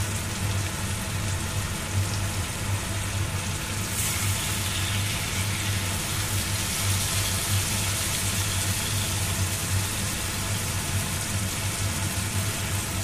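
Pork and vegetables sizzling in a wok over a gas flame, the sizzle growing brighter about four seconds in, over a steady low hum.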